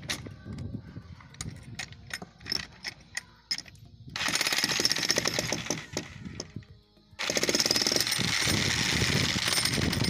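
A 25 kg electric demolition breaker (jackhammer) chiselling into a reinforced concrete slab. It hammers rapidly in two runs: the first starts about four seconds in and stops after about two and a half seconds, and the second starts about seven seconds in and keeps going. Before the first run there are only scattered knocks.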